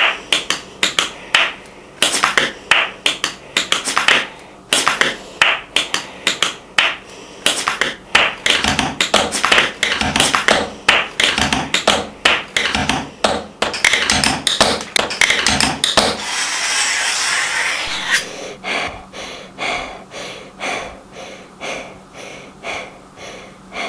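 Tap shoes striking a hard floor in quick rhythmic runs of sharp taps. About two-thirds of the way through there is a brief dense, hissy rush, then more evenly spaced taps that grow slightly softer toward the end.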